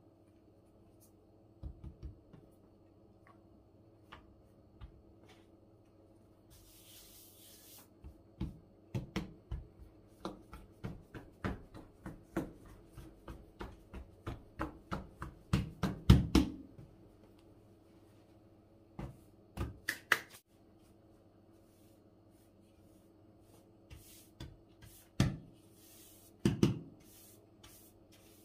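Hands patting and pressing a floured stack of thin baklava dough sheets on a wooden table, a run of soft slaps about two a second in the middle, then a few scattered knocks.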